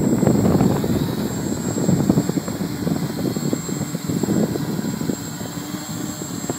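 Multirotor drone's electric motors and propellers whirring in flight, rising and falling, with wind buffeting the microphone.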